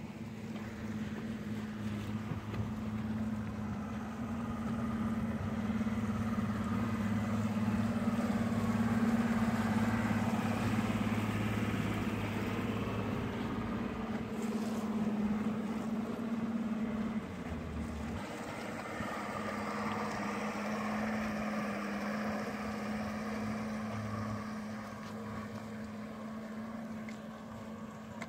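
Outboard motor of a 2005 Hydra-Sports Lightning 212 center console running steadily as the boat cruises, a low engine drone over the rush of water along the hull and some wind. The drone dips briefly about two-thirds of the way through, then settles again.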